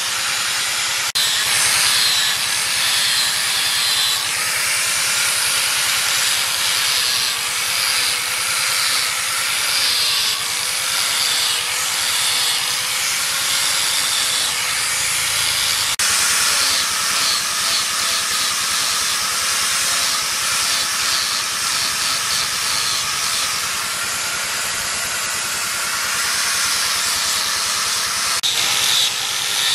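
Electric angle grinder with an abrasive sanding disc running against wood: a steady motor whine under a loud, continuous hiss as the disc grinds and sands the wooden piece into shape.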